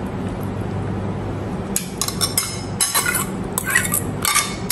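A metal fork clinking and scraping against a ceramic plate and a glass mixing bowl as mashed banana is scraped off into the bowl, a quick run of sharp clinks starting a little under halfway in, over a low steady hum.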